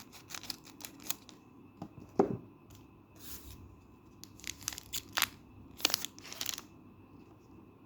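Crinkly foil wrapper of a Magic: The Gathering booster pack being torn open and handled, in irregular sharp rips and crackles.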